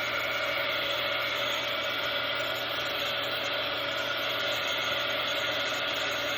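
Handheld electric hot-air dryer running steadily with a constant whir, drying water-dampened ink on paper.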